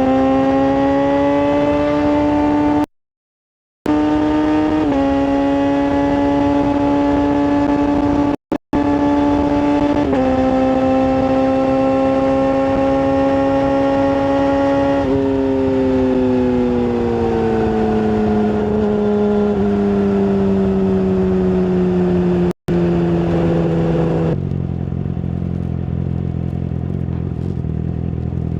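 Yamaha R6 sportbike's inline-four on a full exhaust, holding a high-pitched, steady note with small steps in pitch, then slowing with a falling pitch and settling to a lower, steadier note near the end. The sound cuts out completely three times, for about a second early on and twice briefly.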